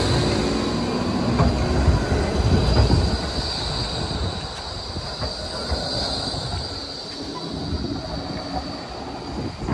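Melbourne E-class tram passing close by: a low rumble of wheels on rails, heaviest in the first three seconds and then easing off, with a steady high-pitched squeal over it.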